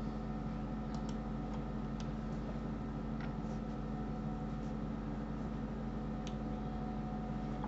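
Computer mouse clicking a few times, faint and scattered, over a steady low electrical hum.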